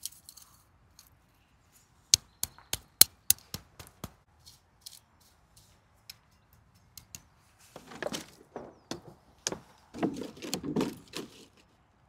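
Hori hori garden knife working soil in a raised bed: a quick run of sharp clicks and scrapes about two seconds in, scattered ticks after, then louder rustling and scraping near the end as the clear plastic cloches are handled.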